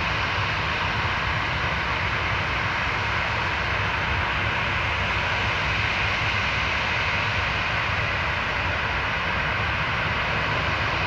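Ryanair Boeing 737 jet engines running at taxi power, a steady whine and rushing noise that holds one level and pitch throughout, before the take-off run.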